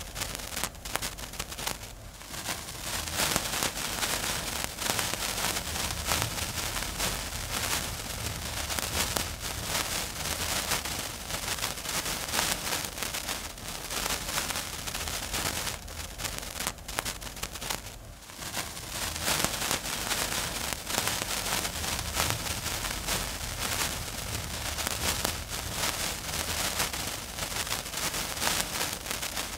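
Lit fuse burning, a continuous fizzing crackle of tiny sparks with a few brief dips.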